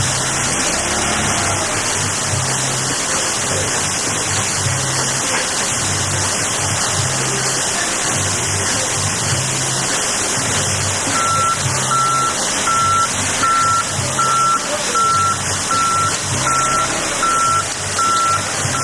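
Caterpillar propane forklift running as it maneuvers up to the hoppers. From about halfway through, its reversing alarm beeps about once a second.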